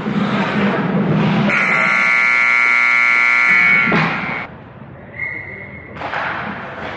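Ice rink scoreboard buzzer sounding one long, steady blast of about two seconds, starting about a second and a half in as the arena music stops. A shorter high tone follows about five seconds in.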